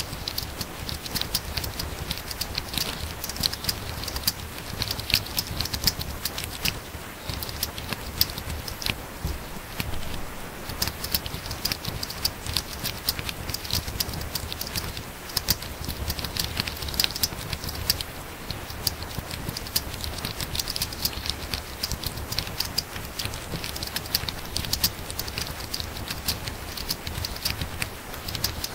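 Fast typing on a laptop keyboard: a dense, irregular patter of key clicks, with brief lulls between runs.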